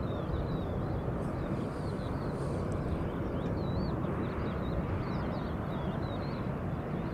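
Airbus A320 jet airliner taxiing at idle: a steady low engine rumble, with small birds chirping repeatedly over it.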